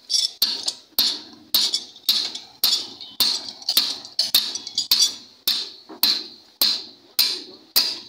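Evenly paced sharp metal strikes, about two a second, each ringing briefly: the spoked wheel of an auto-rickshaw being struck while it is set true.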